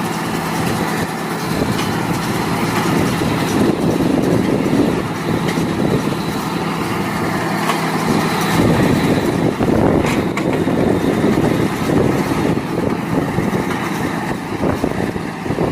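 Mahindra 4710 diesel tractor running steadily as it pulls a Massey Ferguson Hesston 1745 round baler through hay, with a dense mechanical clatter over the engine note that grows rougher and noisier about halfway through.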